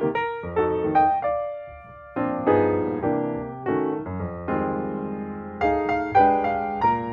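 Background piano music: a gentle tune of struck notes, each fading before the next.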